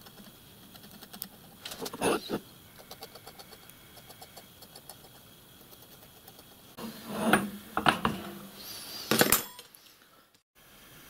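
Steel scriber scratching marking-out lines on the blued face of a cast iron cylinder block, in quick repeated strokes. Louder metallic clanks come about two seconds in and again twice near the end, as the metal block and tools are handled and set down on the bench.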